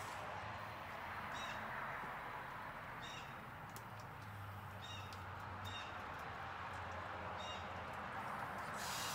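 A bird giving short, high calls about five times, one to two seconds apart, over a steady low hum and hiss.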